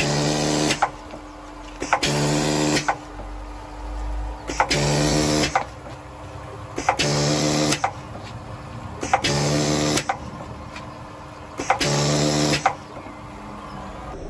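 Urbinati pneumatic volumetric seeder cycling six times, about every two and a half seconds. Each cycle is a sharp click followed by just under a second of hiss and buzzing hum as it seeds a pot and moves the next one along.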